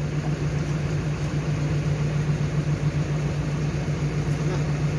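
A JCB digger's diesel engine idling steadily, with an even low hum.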